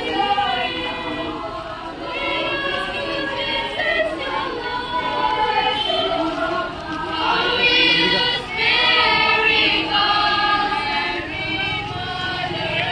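A group of people singing a hymn together in chorus, in long held notes.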